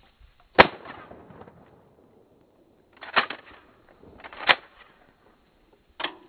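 Mossberg New Haven 12-gauge pump-action shotgun shooting: a loud shot about half a second in with a short echoing tail. Three more sharp cracks follow, about three, four and a half and six seconds in, the last one lighter.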